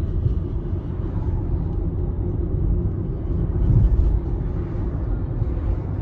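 Road and tyre rumble of a Nissan Leaf electric car moving slowly in traffic: a steady low rumble, louder for a moment about four seconds in.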